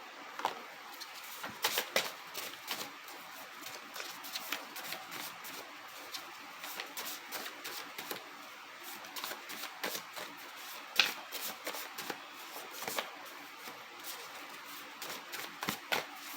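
A deck of cards being shuffled and handled, a run of quick, irregular flicks and clicks, with one sharper snap about eleven seconds in.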